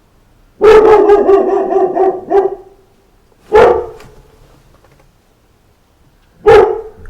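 Dog barking: a quick run of barks for about two seconds starting half a second in, then two single barks about three seconds apart.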